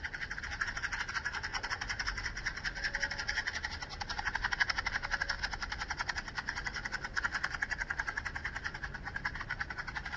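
A box of matches shaken continuously, the loose matches rattling fast and steadily inside it, recorded binaurally (holophonic 3D sound) so that it seems to move around the listener's head.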